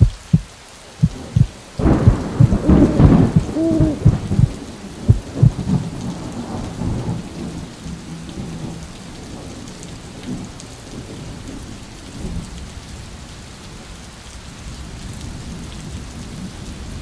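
Thunderstorm sound effect: a few low thumps, then a loud thunder crash about two seconds in that rumbles away into steady rain.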